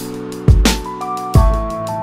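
Electronic background music: held notes over two deep drum hits, one about half a second in and another near the end.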